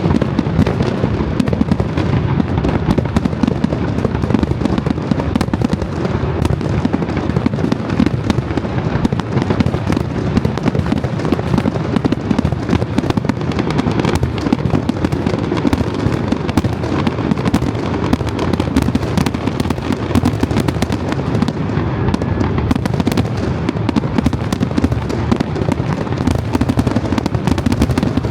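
Aerial fireworks going off in a dense, continuous barrage, with rapid overlapping bangs and no let-up.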